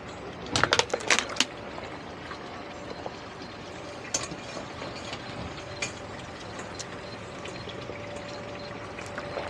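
Steady rush of water from a salvage pump pumping out a swamped boat, with a quick cluster of sharp knocks about a second in.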